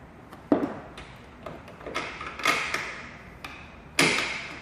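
Spin bike saddle being adjusted and handled: a series of sharp knocks and clicks, a cluster in the middle and the loudest about four seconds in.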